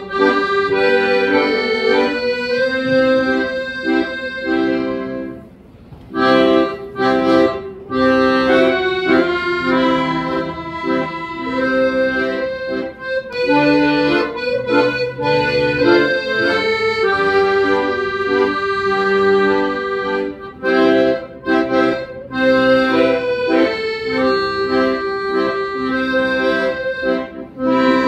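Piano accordion played solo: a melody on the right-hand keyboard over chords from the left-hand bass buttons, the free reeds holding each note steady. The sound dips briefly about five seconds in, then the playing carries on.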